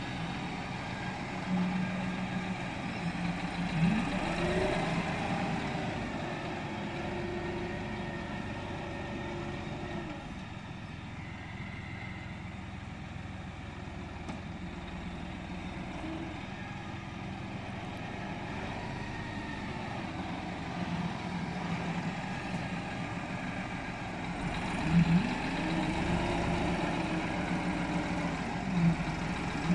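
Deutz-Fahr 5080D tractor's diesel engine running while its front loader digs and lifts manure into a spreader, revving up and back down about four seconds in and again near the end.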